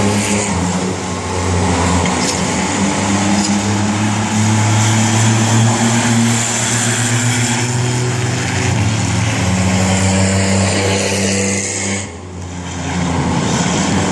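V6 banger race cars' engines running at racing speed around the oval, a steady, loud engine drone. It dips briefly about twelve seconds in, then comes back.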